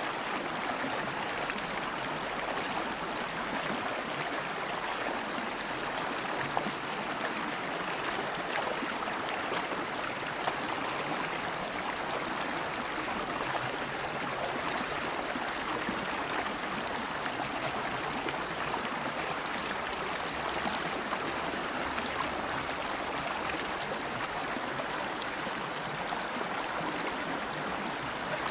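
River water flowing steadily over rocks, a continuous even rush with faint gurgling.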